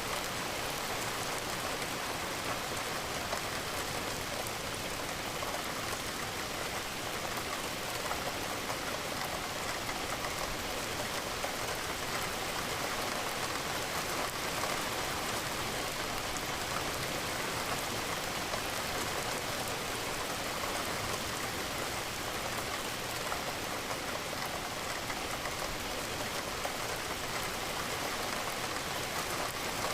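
Steady rain falling, with a dense patter of raindrops on a window and surfaces.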